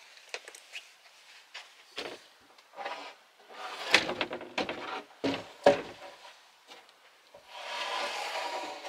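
Solid oak worktop knocking and bumping against the kitchen cabinets as it is lowered into place, with two louder knocks midway. Near the end it scrapes as it slides along the cabinet tops.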